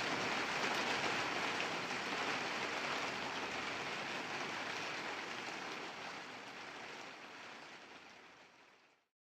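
Steady rain falling and pattering on a surface, fading out over the last few seconds until it stops.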